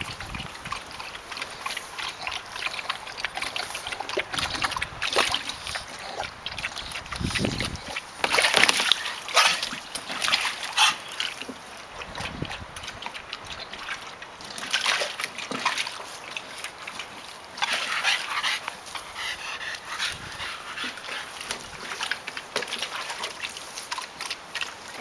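Puppies splashing, sloshing and lapping at the water in a shallow plastic clamshell paddling pool, in irregular bursts, with a short puppy whimper now and then.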